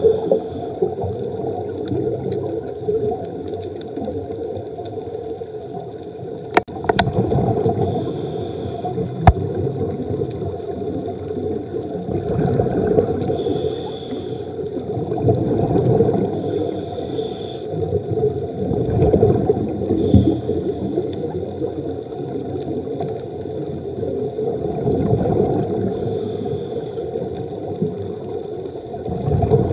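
Scuba breathing heard underwater through a camera housing. Regulator exhaust bubbles gurgle, swelling and fading every few seconds with each breath. Two sharp clicks come about a quarter of the way in.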